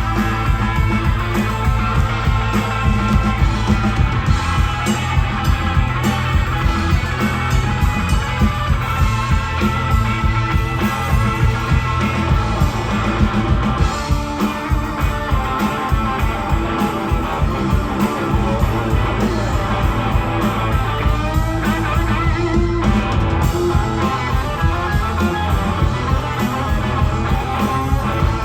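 Band playing an instrumental rock jam: guitar over bass and drums with a steady beat.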